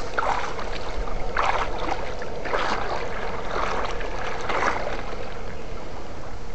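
Water sloshing and splashing in a shallow stream in irregular strokes about once a second, as an electric-fishing pole and scoop net are worked through it. Under it runs a steady noise with a faint constant hum.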